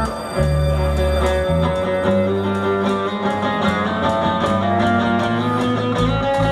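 Live band playing an instrumental break with no vocals: a plucked guitar picks out the melody over sustained bass notes.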